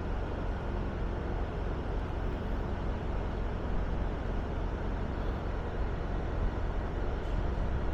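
Steady low rumble of a train running by, an even noise with no distinct knocks or horn, growing slightly louder near the end.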